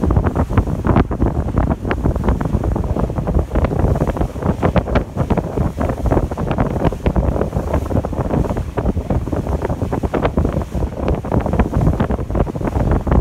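Heavy wind buffeting the microphone aboard a moving sightseeing ship, in irregular gusts, over a low rush of ship and water noise.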